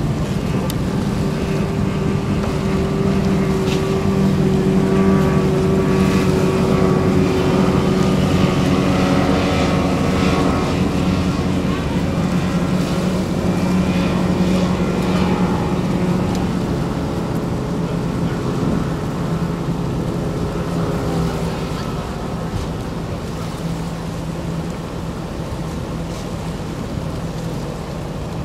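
Inboard race-boat engines running steadily at low speed on the water, a deep even drone that eases off after about twenty seconds.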